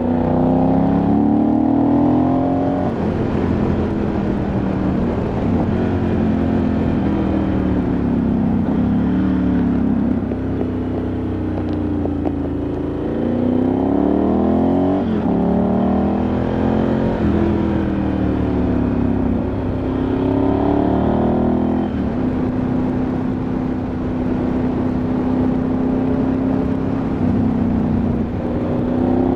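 Ducati Multistrada 1100S's air-cooled V-twin engine heard from the bike under way, revs climbing through the gears several times, dropping off in between, then holding steady at cruise near the end.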